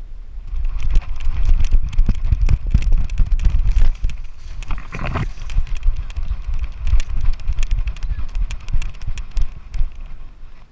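Quick, irregular footfalls and knocks picked up on a GoPro camera, with heavy low rumble from movement and wind on its microphone. A louder short sound comes about five seconds in.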